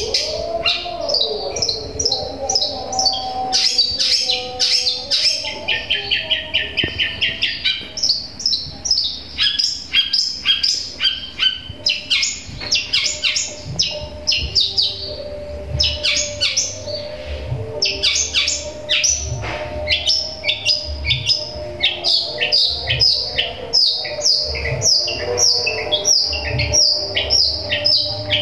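Long-tailed shrike (cendet) singing long runs of rapid, sharp chirps, stringing together imitated sparrow (burung gereja) calls. The runs break off briefly twice.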